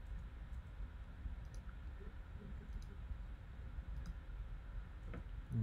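Faint low hum and hiss from a video-call audio feed that has a sound fault, with a few faint clicks.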